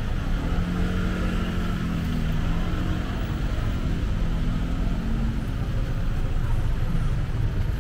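Road traffic: a vehicle engine's steady hum stands out close by for the first five seconds or so, over continuous traffic noise.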